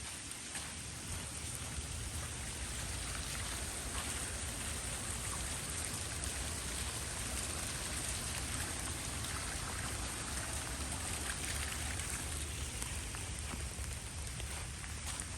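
Steady splashing and patter of water from a waterfall fountain pond, with a low rumble underneath.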